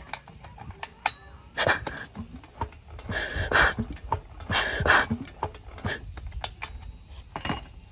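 Hand-tool work on a small diesel engine block: scattered metallic clicks and taps, with three short rasping strokes about a second and a half, three and four and a half seconds in.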